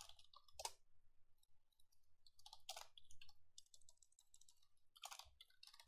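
Faint computer keyboard typing and clicking, in short scattered flurries of keystrokes.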